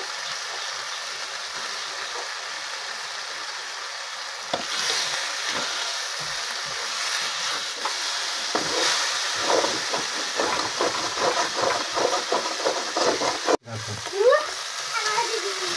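Onion masala frying in a kadhai with a steady sizzle. From about five seconds in, a metal slotted spatula stirs and scrapes through the paste in quick strokes. Near the end, raw chicken pieces are tipped in from a steel bowl with a louder bump.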